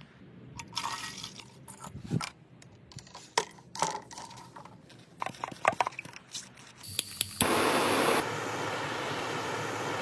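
Scattered clicks and knocks of workshop handling, then a loud steady spray hiss that starts suddenly about seven seconds in and eases a little a second later.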